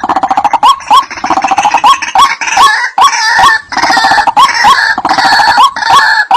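White-breasted waterhen calls: short hooked 'kru-ak' notes repeating about twice a second, overlaid by a dense, rapid chattering and croaking chorus.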